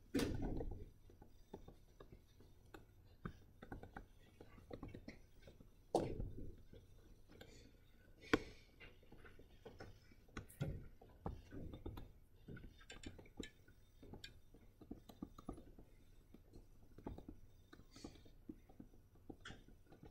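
Quiet room tone with scattered small clicks, taps and rustles, and a few louder thumps: at the very start, about six seconds in, and about eight seconds in.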